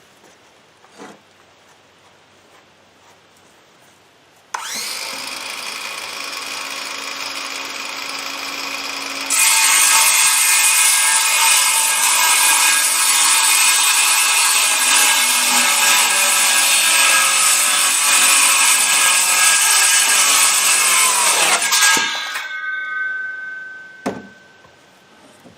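Ridgid OCTANE 18V brushless 7-1/4-inch cordless circular saw starting up about four seconds in and running free with a steady whine, then cutting through wood, much louder, for about twelve seconds. The blade then winds down over a couple of seconds.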